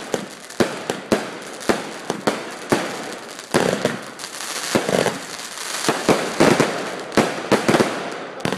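Fireworks going off: an irregular string of sharp bangs, about two a second, with crackling between them that grows denser about three and a half seconds in.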